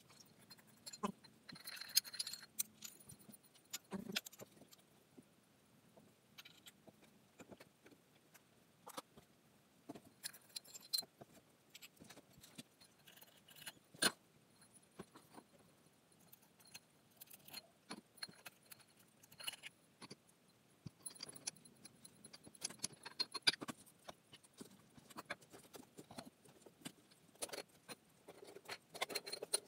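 Irregular clicks and metallic clinks of ceiling fan parts and hardware being handled during installation, some with a brief high ring.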